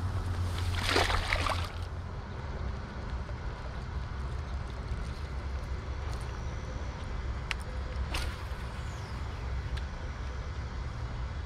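A bass released back into a pond, landing with a brief splash about a second in, over a steady low rumble; a couple of sharp clicks follow later.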